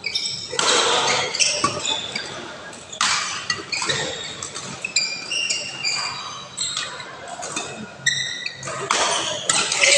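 Badminton doubles rally: sharp racket strikes on the shuttlecock and frequent short, high squeaks of players' shoes on the court floor, echoing in a large hall.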